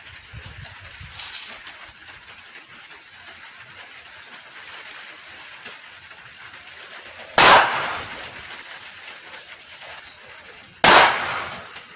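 Two gunshots about three and a half seconds apart, each a sharp crack that trails off over about a second, fired at bottle-and-can targets.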